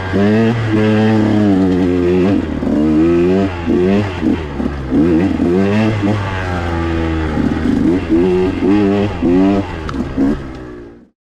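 KTM 125XC's two-stroke single-cylinder engine being revved, its pitch rising and falling again and again over a steady low drone. It cuts off suddenly near the end.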